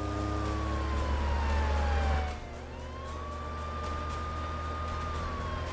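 Police car siren wailing: a tone holds high, slides slowly down, swoops quickly back up, holds again, then starts another slow fall. Under it a deep vehicle rumble is loud for the first two seconds or so, then drops away.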